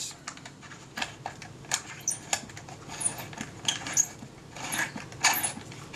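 Scattered small clicks and light scrapes of a 1920s APM box camera's film-advance winding key being turned by hand as it is worked into the slot of the film spool.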